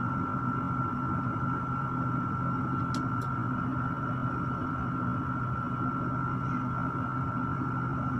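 Electric stand fan running with a steady motor hum and whir. Two quick faint clicks come about three seconds in.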